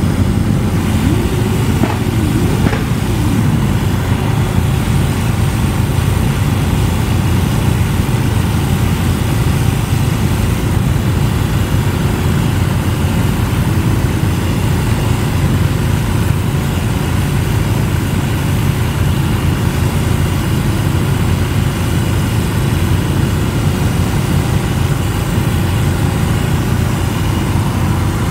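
Many motorcycle engines idling together in a stopped column, a steady low rumble. About two seconds in, one engine briefly rises and falls in pitch.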